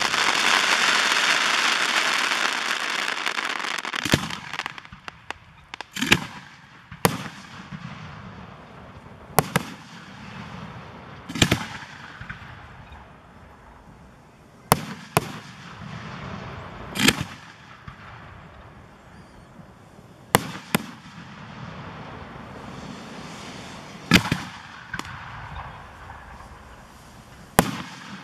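Fireworks display: a loud hiss that fades over the first four seconds, then about a dozen sharp bangs of aerial shells bursting, irregularly spaced a second or several apart, some echoing.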